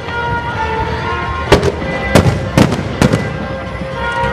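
Aerial fireworks bursting: four sharp bangs in quick succession from about a second and a half to three seconds in, over music playing in the background.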